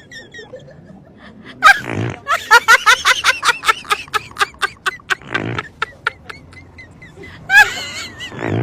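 Three short, low fart noises, about two seconds in, in the middle and near the end, with a run of rapid laughter between the first two.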